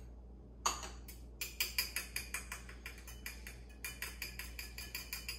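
A utensil clinking rapidly against a ceramic bowl while stirring evaporated milk and melted butter together, about five light ticks a second. A single sharper clink comes first, under a second in.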